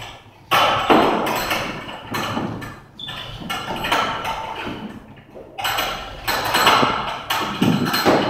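Heavy battle rope slapping the floor as it is whipped in waves, the hits coming unevenly about once a second, each one trailing off.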